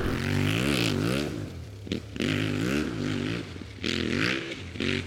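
Off-road motorcycle engine revving up and down as the rider works the throttle, with brief drops in the engine note about two seconds in and near four seconds, over tyre, gravel and wind noise.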